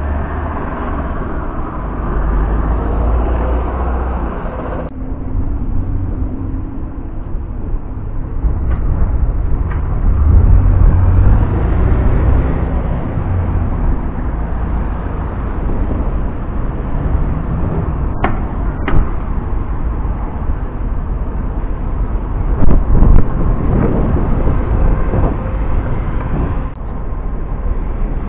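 Engines of buses running and pulling past close by amid steady road-traffic noise. The rumble sits low and swells loudest as buses go by.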